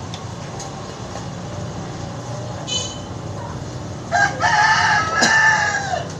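A rooster crowing once, starting about four seconds in: a short first note, then a long call that bends down in pitch at its end. Underneath is a steady low background rumble.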